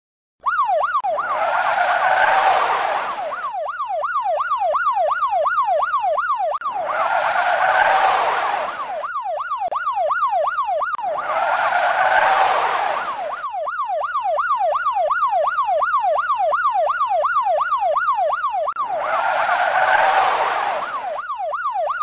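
Police siren sound effect in a fast yelp, its pitch sweeping up and down about three times a second, starting about half a second in. Four times it is overlaid by a louder rushing noise of a car going past, each lasting two to three seconds.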